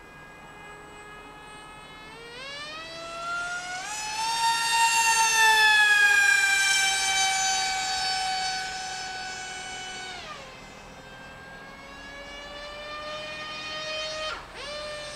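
Electric motor and propeller of a Z84 RC flying wing whining as the throttle comes up about two seconds in. The pitch climbs, then slowly sinks, and is cut back sharply about ten seconds in to a quieter whine. The whine briefly dips and comes back near the end.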